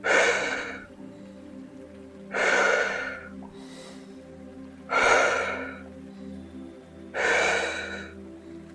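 A woman doing Wim Hof power breathing: deep, forceful breaths in a steady rhythm, four in all, about two and a half seconds apart, each starting sharply and trailing off. Soft background music with a steady low drone runs underneath.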